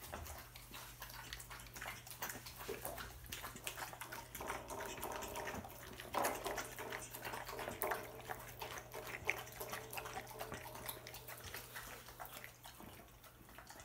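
Dogs lapping and slurping wet food from bowls: a rapid, irregular wet licking and smacking, over a steady low hum.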